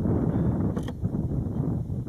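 Wind buffeting the microphone in a steady low rumble, with one brief faint tick just under a second in.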